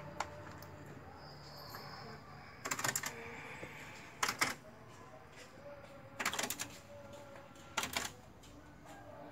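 Four short bursts of rapid, rattling clicks, spaced a second or two apart, over a faint low hum.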